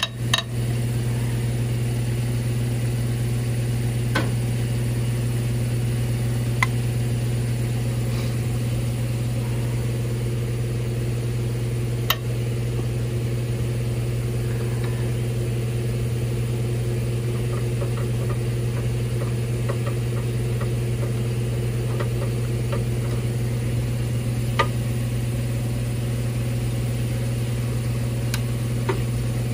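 A steady mechanical hum, like a small engine or motor running at an even speed, goes on throughout; its source is not seen. Over it come a few sharp metal clicks and taps, with a run of small ticks near the middle, from a socket wrench and breaker bar working the cylinder head bolts.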